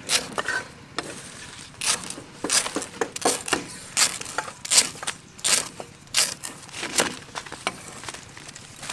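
Steel cleaver chopping through pandan leaves onto a wooden chopping board: sharp irregular chops, about two a second.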